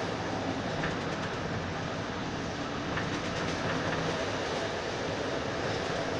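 Moving train heard from inside the carriage: a steady running rumble with a low hum and a few faint clicks of the wheels over the rail joints.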